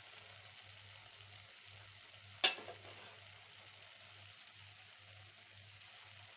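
Pot of spinach rice on the stove giving a faint, steady sizzling hiss, with one sharp knock about two and a half seconds in.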